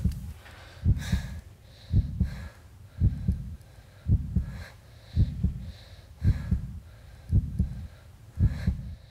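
Slow heartbeat sound effect: a low double thump, lub-dub, repeating evenly about once a second.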